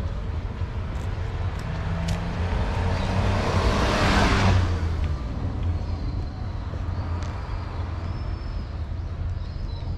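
A small white van driving past close by, its engine and tyre noise swelling to a peak about four seconds in and fading away within a couple of seconds.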